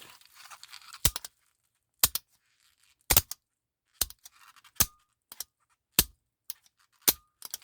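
Restored 1959 Cadillac Eldorado Biarritz power door lock actuator solenoid, driver-side unit, being powered on test. Its plunger gives sharp snaps as it extends and retracts, about one a second.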